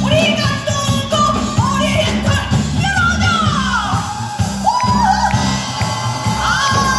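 Korean traditional orchestra playing a fusion piece over a heavy pulsing bass beat, with a singer's voice sliding and bending between long held notes.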